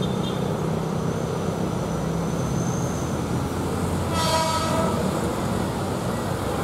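Electric commuter train sounding its horn once, a short toot of under a second about four seconds in, over a steady low rumble.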